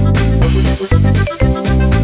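Background music with a steady beat, keyboard and synthesizer sounds over a strong bass.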